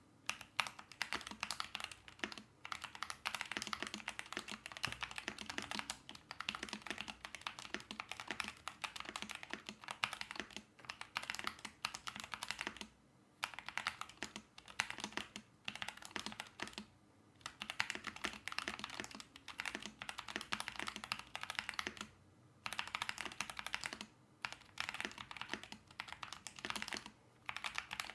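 Normal typing on a Keychron V4 mechanical keyboard with lubed Feker Smokey Tactile switches, cherry-profile doubleshot ABS keycaps, tape-modded with the plate foam removed and a silicone pad in the case. A fast stream of keystroke clicks with a few short pauses.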